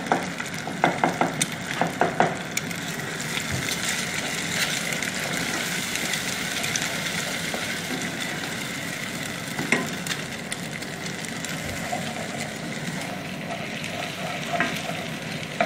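Eggs frying and sizzling in oil in a non-stick pan while a spatula stirs and scrambles them, scraping across the pan. A few sharper knocks of the spatula against the pan come in the first couple of seconds, and another near the ten-second mark.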